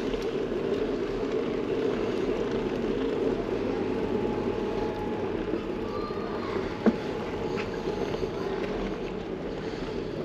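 Steady rushing noise of riding a bicycle on the road, wind on the microphone mixed with tyre noise, with a single sharp click about seven seconds in.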